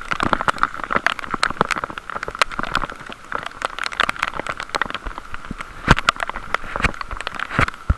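Heavy rain shower: drops land close by as rapid, irregular sharp taps over a steady hiss of rain.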